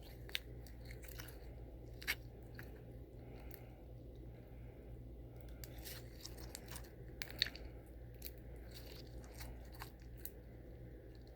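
Slime being squished and worked by hand, giving scattered small crackles and pops with a few sharper clicks, about 0.3, 2 and 7.5 seconds in. A steady low hum sits underneath.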